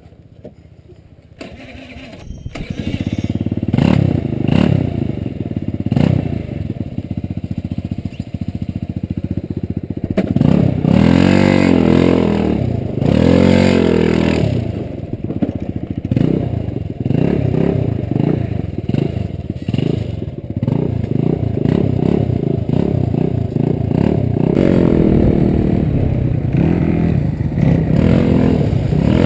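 Honda Elite 80 scooter's 80cc single-cylinder four-stroke engine starting about two seconds in, then running and revving up and down repeatedly as the scooter rides off over dirt.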